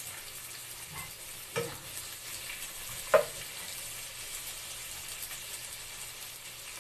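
Sliced red onions sizzling in hot oil in a ceramic-coated pan as they sauté, stirred with a wooden spatula. There is a light knock about a second and a half in and a sharp knock about three seconds in.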